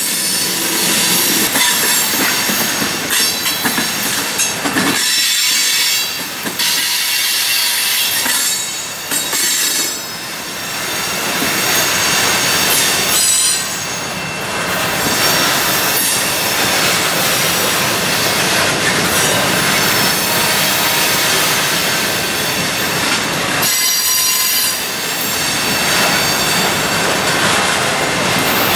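Freight train cars rolling past close by, first tank cars and then bulkhead flatcars, with the wheels clattering over the rail and a thin, steady high squeal from the wheels on the rail.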